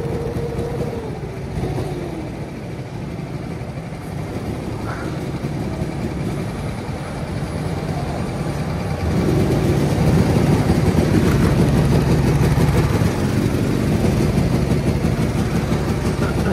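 Rental go-kart's petrol engine running under the driver as the kart laps. It gets clearly louder about nine seconds in as the kart accelerates.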